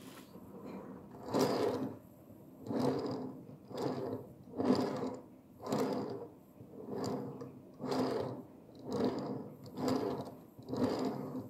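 Scratch-built HO-scale decapod locomotive chassis rolled back and forth on the track: its metal driving wheels run on the rails and the side rods clatter as they turn. The sound comes in repeated swells, a little more than one a second, as the chassis runs to and fro. This is a trial of the freshly fitted side rods for free running.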